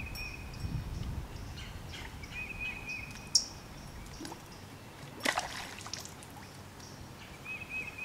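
A bird calling in short repeated trills over faint outdoor background. There is a sharp click a little past three seconds. About five seconds in comes a splash as a released smallmouth bass drops back into the river.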